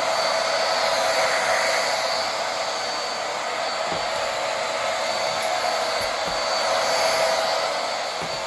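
Corded vacuum cleaner running with its roller brush engaged: a steady motor whine over rushing air. At the very end it starts to wind down.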